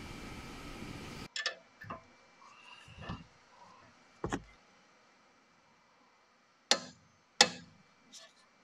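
A steady hiss cuts off about a second in. Then come a few light metallic clicks and knocks as a socket and wrench are set on a bolt, followed by two loud sharp clicks less than a second apart near the end: a click-type torque wrench breaking over at its set torque.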